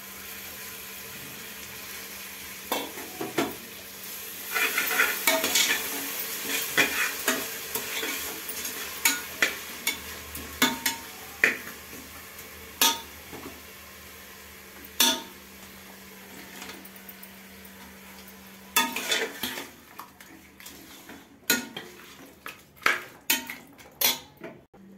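Steel spoon stirring and scraping masala in an aluminium pressure cooker, with irregular clinks against the pot, over a steady sizzle of frying. About three quarters of the way through the sizzle drops away and the clinking and scraping grow busier.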